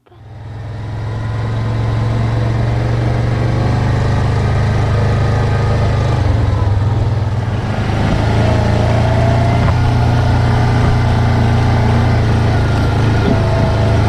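ATV engine running steadily as it is ridden along a dirt track, heard from a camera mounted on its front rack; a steady low drone that fades in over the first second or two.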